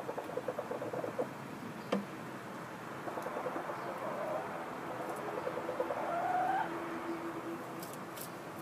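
Hens in straw nest boxes making low, rapid clucks, then a drawn-out call that rises in pitch about six seconds in, the loudest sound here. A few light clicks near the end.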